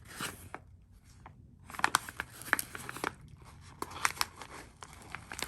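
Packaging being handled and opened: crackling, crinkling and tearing. It is quiet for a moment about a second in, then a run of sharp crackles and clicks follows.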